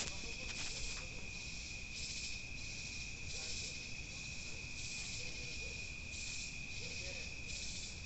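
Night insect chorus of crickets: a steady high-pitched trill, with a higher buzzing chorus pulsing on and off a little under once a second, over a low rumble.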